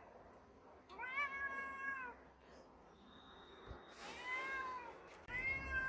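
Domestic cat meowing: three drawn-out meows, each about a second long, rising and falling in pitch. They come about a second in, about four seconds in, and near the end.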